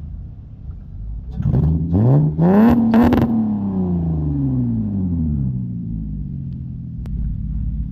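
Car engine revved once: the pitch climbs quickly to a loud peak, then falls slowly back to a low rumble.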